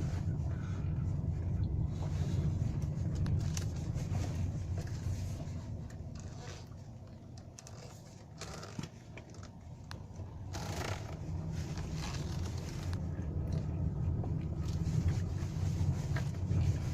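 Cabin road and tyre noise of a Hyundai i40 being driven: a steady low rumble that drops off for a few seconds around the middle as the car slows, then builds again, with a few short knocks.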